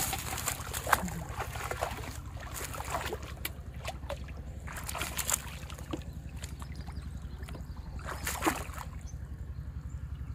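Water splashing and sloshing as a man wades through a pond and works bamboo poles down into the water, in short irregular splashes. A steady low pulsing throb runs underneath.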